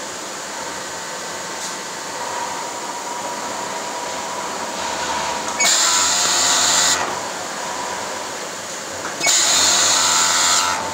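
Industrial sewing machine running in two short bursts of about a second and a half, each a loud high whir, over a steady lower machine hum.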